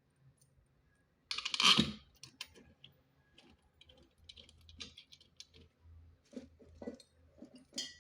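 Small clicks and taps of screws and a hand tool being handled while a washer-dryer's drive motor is screwed back into place, with one louder burst, under a second long, about a second and a half in.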